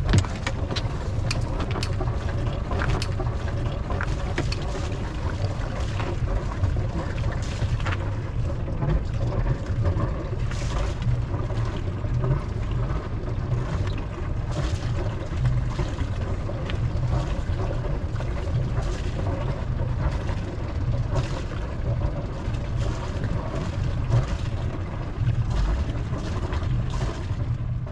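Sailboat's engine motoring at low speed: a steady low rumble, with scattered light clicks and knocks.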